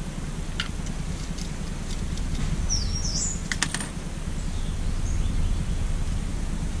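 Steady low background rumble with a few light clicks, and a short bird chirp about three seconds in.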